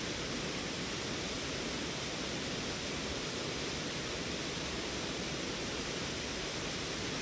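Steady rush of a creek waterfall, falling water without a break.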